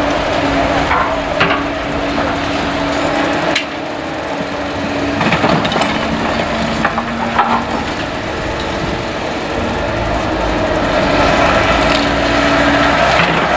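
Caterpillar excavator working demolition: its diesel engine runs under a steady hydraulic whine while debris cracks and splinters in scattered sharp snaps. The engine grows louder in the last few seconds.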